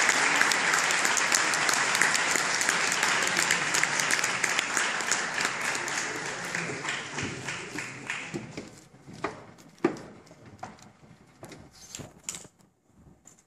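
Audience applause, dense at first, then thinning after about eight seconds into a few scattered claps before dying away.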